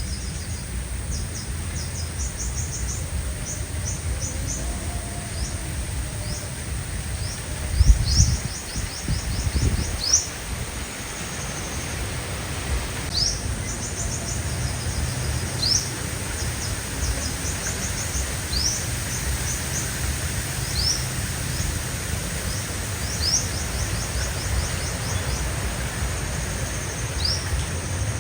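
Sunbirds calling: very high, thin trills and short sharp notes repeated at intervals, over a steady low rumble, with a couple of bumps about 8 and 10 seconds in.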